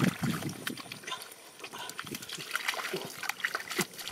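Hands splashing and sloshing through shallow muddy water, with irregular short wet splashes and slaps.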